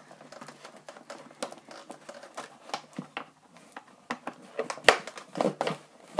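Small scissors snipping and working at a wire twist tie that holds a doll in its cardboard box. It comes as a run of irregular small clicks and snaps, the sharpest about five seconds in.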